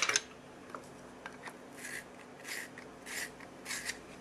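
A Prismacolor colored pencil stroked across drawing paper. After a short clatter right at the start, it makes four short scratchy strokes from about two seconds in, roughly two-thirds of a second apart.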